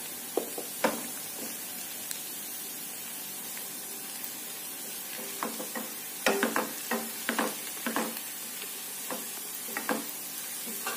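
Chopped garlic sizzling steadily in hot oil in a pan as it browns, stirred with a wooden spatula that scrapes and knocks against the pan. There are a few strokes near the start and a quick run of them in the second half.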